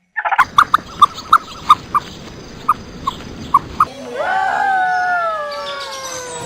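An animal calling: a run of short, sharp calls at uneven intervals, then one long call that slides slowly down in pitch for about two and a half seconds.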